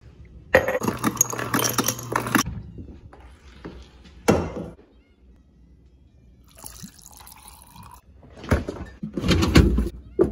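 Water running into a glass jar, then a single knock, then a quieter stream of water poured from a stainless kettle into the jar. Near the end, a low rumble as a refrigerator drawer slides open.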